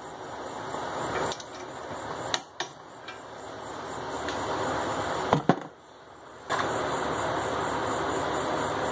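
A few sharp metal clicks and clinks from hand tools on a steering knuckle and its cap bolts, over a steady background hum. The hum drops out briefly just after the middle.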